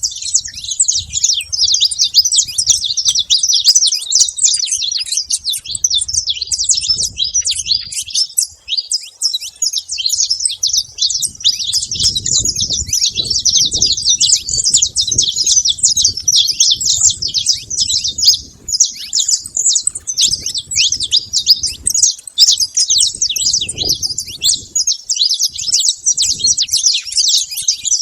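Saffron finches chirping noisily in a dense, unbroken stream of rapid high chirps, many calls overlapping.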